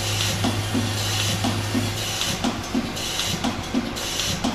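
Automatic blind-rivet feeding machine running through its feed cycle: a steady low hum that stops about two seconds in, and a short burst of air hiss about once a second as the pneumatic cylinders cycle to send rivets down the feed tube.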